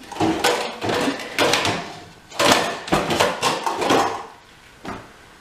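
Metal pots and lids clattering as someone rummages in a kitchen cabinet: a run of knocks and clanks for about four seconds, then a single knock near the end.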